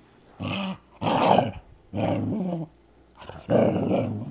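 Poodle growling over her bone in four short bursts, a sign of possession aggression (resource guarding).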